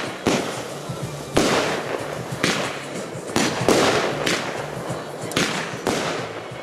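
Consumer firework batteries firing shot after shot, a sharp report about once a second, each trailing off in a fading hiss.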